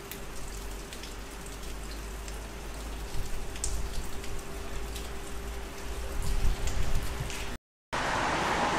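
Rain falling at a railway platform, an even hiss with scattered drops ticking, over a steady hum. About three-quarters of the way in the sound cuts out for a moment and a louder, even rushing noise takes over.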